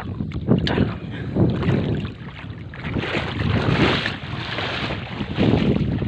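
Wind buffeting the microphone over water sloshing, swelling and easing in irregular gusts.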